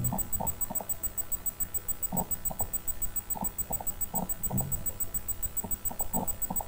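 A person's low, mumbled voice in short scattered fragments, over a steady faint high-pitched electronic tone.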